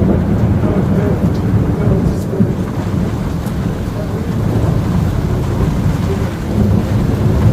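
Thunder rumbling continuously, with rain falling.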